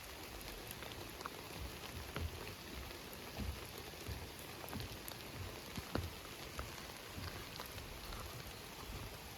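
Steady rain, with individual drops ticking irregularly on a surface.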